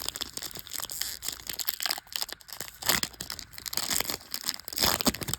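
Topps Chrome trading-card pack wrapper being torn open and crinkled: a dense run of crackles, with louder crinkles about three and five seconds in.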